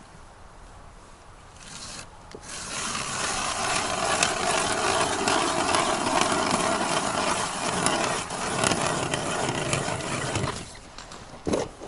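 Hand ice auger drilling a hole through sea ice: about eight seconds of continuous grinding and scraping that starts a couple of seconds in and stops shortly before the end.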